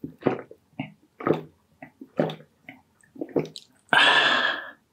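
Close-miked mukbang eating: wet, squelching chewing of a mouthful of food, a short smack about every half second. Near the end comes a louder wet mouth sound lasting about a second.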